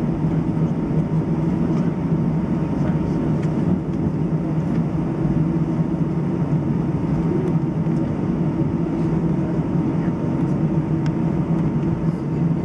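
Airbus A319 airliner taxiing, heard inside the cabin: a steady low drone of the engines at taxi power with a faint constant whine above it.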